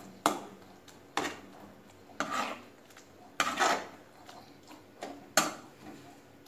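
A metal slotted spatula scraping and knocking against a metal kadai as it stirs a wet yogurt mixture, in irregular strokes about once a second.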